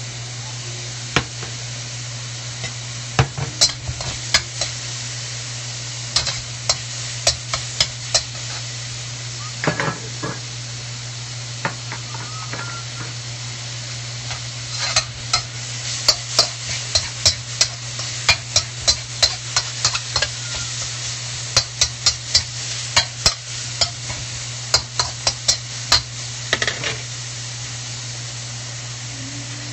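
Diced chicken sizzling in a wok just after soy sauce and oyster sauce go in, while a spatula stirs it, clinking and scraping against the metal pan again and again, most often in the second half. A steady low hum runs underneath.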